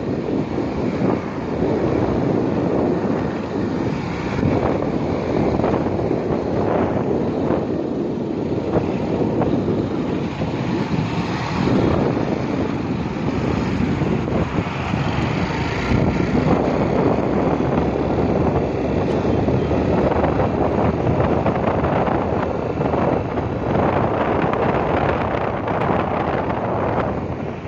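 Wind rushing and buffeting over the microphone of a phone carried on a moving two-wheeler, with the ride's engine and road noise underneath.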